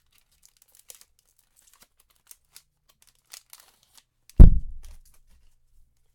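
Faint crinkling and light ticks of foil card packs and cards being handled, then one loud, deep thump about four and a half seconds in, a knock against the table or microphone.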